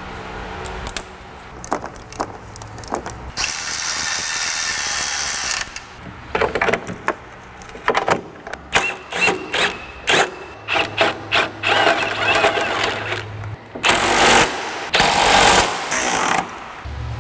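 A power tool runs fasteners down in three bursts: a longer one about three seconds in, then two short ones near the end. Between them come irregular clicking and clatter from hand tool work.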